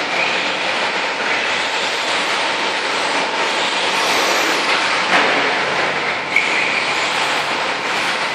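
Radio-controlled short course truck running on an indoor dirt track: a steady, dense drive and tyre noise, with a couple of brief knocks past the middle.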